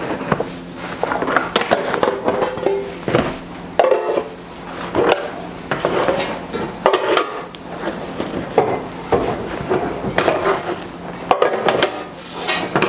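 Metal bread pans and kitchen utensils clattering and knocking, a busy run of short knocks and scrapes.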